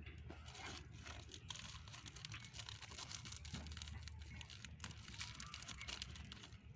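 Irregular rustling and crackling close to the microphone, over a steady low hum.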